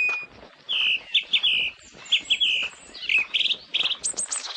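Songbirds chirping. A held, whistled high note breaks off right at the start, followed by short phrases of quick high chirps and trills about every half second to a second.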